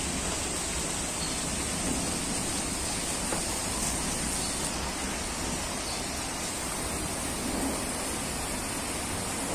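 Steady rain falling on wet paving and into standing puddles, an even hiss with no breaks.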